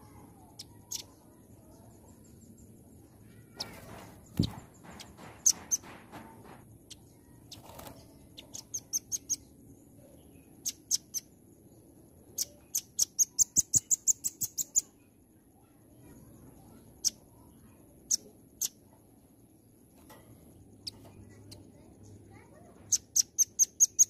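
Velvet-fronted nuthatch giving sharp, high-pitched chip notes in fast runs of about six a second, the longest lasting about two seconds, in the middle. About four seconds in, a rustle and a short thump break in.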